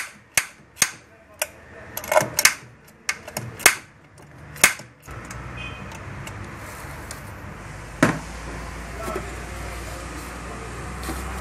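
Sharp metal clicks and taps of hand-tool work on an engine, about two a second for the first few seconds. A steady low hum starts about five seconds in, with one more click later.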